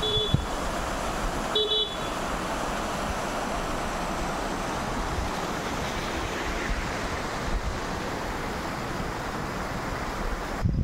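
Steady rushing of rainwater pouring down a rock face and over loose stones. Near the start, two short vehicle horn toots sound over it.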